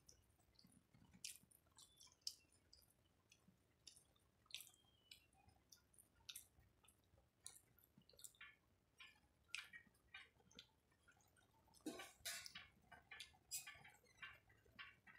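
Faint chewing and mouth noises: irregular small clicks and smacks, bunching up about twelve seconds in.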